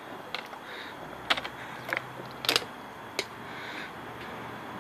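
Thin plastic water bottle crackling in a handful of sharp, irregular clicks as it is gripped and squeezed during drinking, with a few soft breathy puffs between them.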